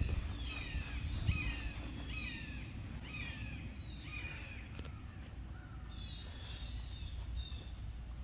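Wild birds calling: a run of short chirps, each falling in pitch, repeated about twice a second for the first five seconds, then a higher string of calls about six seconds in. A low steady rumble lies underneath.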